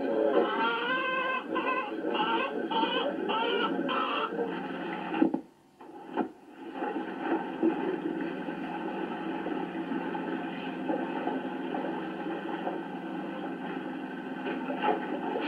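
Hens clucking for the first few seconds. The sound cuts out for about a second, and a steady rushing noise follows.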